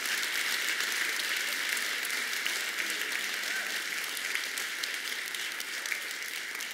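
Congregation applauding: dense, steady clapping from a large crowd that holds through and eases slightly near the end.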